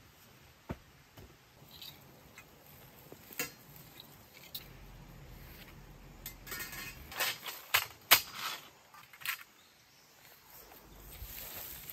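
Dry pulled weeds and grass rustling and crackling as they are handled and gathered, with scattered sharp clicks and snaps, busiest about two-thirds of the way in.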